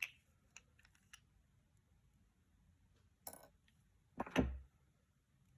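Small metal lock parts (pins, springs and tools) being handled during disassembly of a pin-tumbler cylinder: a few light clicks, a short scrape about three seconds in, and a louder knock just past four seconds in.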